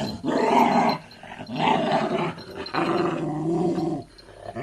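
Dog growling in three long, low grumbles of about a second each, with short breaks between. The growling is a sign of annoyance at another dog licking at its mouth.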